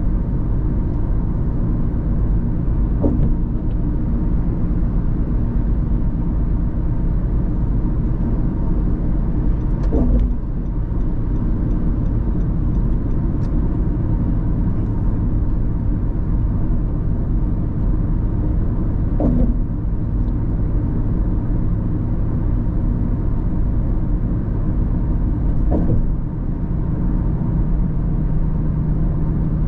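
Steady low rumble of a car being driven, engine and tyre noise, with four brief thumps spread through it.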